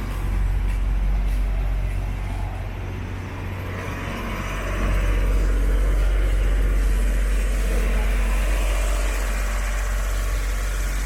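City street traffic: cars, trucks and buses passing close by with a low engine rumble. It swells about half a second in and again from about five seconds in.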